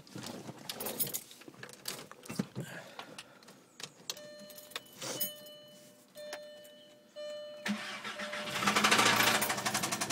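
Clicks and handling noises, then a dashboard chime beeping in short interrupted tones, then about three-quarters of the way through a VW Mk4 Jetta's 2.0 inline-four cranks and catches, revs up briefly and settles into a steady idle. This is the engine whose noise the owner suspects may be rod knock after it ran low on oil.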